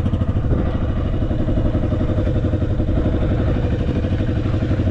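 Dirt bike engine running steadily at low revs, a fast even putter, as the bike rolls slowly across a dirt lot.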